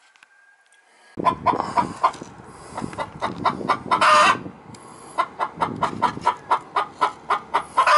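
Rooster clucking in a rapid series of short calls, about three or four a second, broken by a couple of longer, louder calls. The clucking starts about a second in, after a quiet moment.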